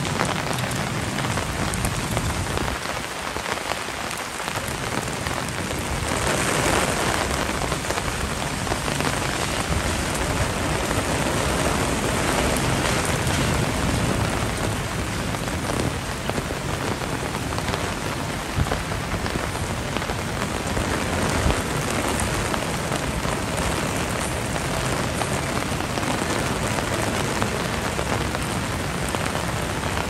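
Heavy rain from a typhoon falling steadily, a dense unbroken hiss of drops hitting the ground.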